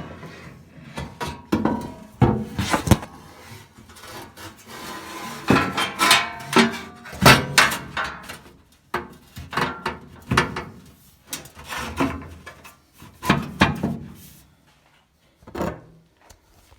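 A replacement sheet-metal floor panel being test-fitted into an early Ford Bronco body: irregular knocks, clunks and scraping of metal on metal as it is shifted into place. There is a longer scrape about five seconds in, and the handling dies down near the end with one last knock.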